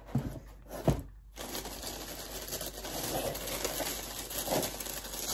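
A couple of short knocks as the cardboard box is handled, then silver tissue wrapping paper rustling and crinkling steadily as it is handled in the box.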